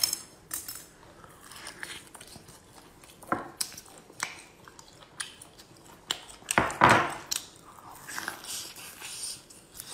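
Whole grilled squid being pulled apart by hand and bitten and chewed, close to the microphone: scattered short, wet biting and chewing sounds, the loudest a little past halfway through.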